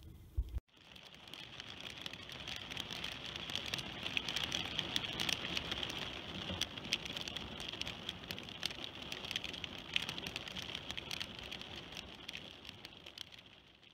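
Hailstorm: hailstones falling and striking the grass and ground in a dense patter of many sharp ticks. It swells in over the first couple of seconds and fades near the end.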